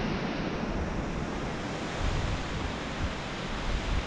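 Sea surf breaking and washing over rocks at the foot of the cliffs: a steady rushing noise, with gusts of wind on the microphone about two and three seconds in.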